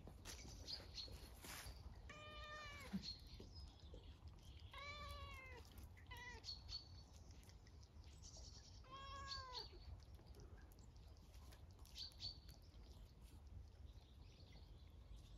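Cat meowing four times, short cries that rise and fall in pitch, the third one briefest, while wrestling with a puppy.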